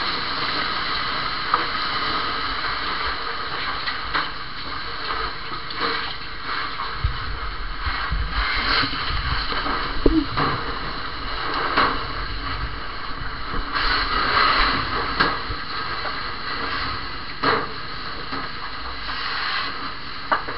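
Fire hose spraying water into a burning room: a steady rushing hiss of water spray and steam, broken by scattered sharp knocks and clatters.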